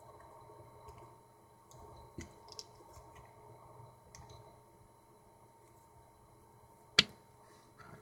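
Small plastic clicks and light handling of a plastic action figure, with one sharp snap about seven seconds in.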